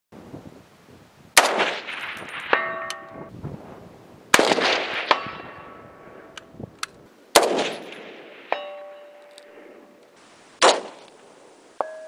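Four shots from an M1A/M14-type rifle in 7.62x51 NATO (.308), about three seconds apart. About a second after each shot comes the clang of the bullet hitting a steel target, which rings on and fades.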